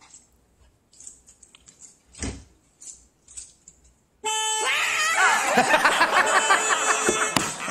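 Faint rustling and a dull thump, then about four seconds in a car horn suddenly blares and keeps sounding, with a man's startled, shrieking yells over it.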